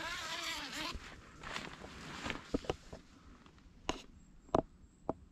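Rustling of tent fabric as the door is pulled open, then footsteps on the forest floor with a few scattered sharp clicks.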